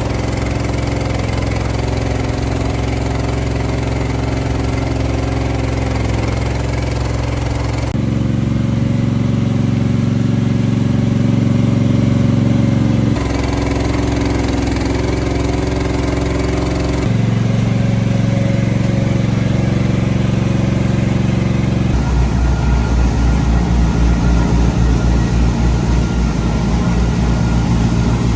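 Machine engines running steadily, one sound giving way abruptly to another four times, as one machine after another is heard.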